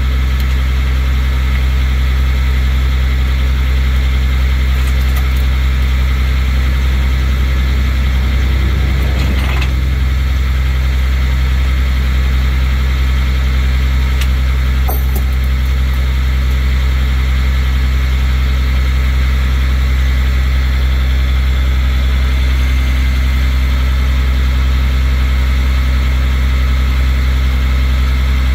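Rollback tow truck's engine idling steadily with a deep, even drone, with a couple of faint clicks over it.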